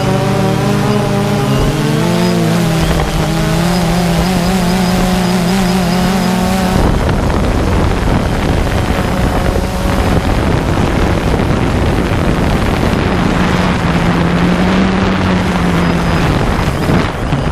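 Drone motors and propellers buzzing, heard close up from the camera on the drone as it descends to land. For the first several seconds the propeller tones waver up and down; after that a steady rush of rotor wash and wind noise dominates.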